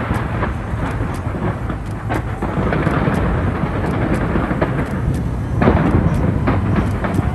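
Fireworks barrage: many shells bursting close together, a continuous rolling rumble with sharp cracks, the loudest about five and a half seconds in.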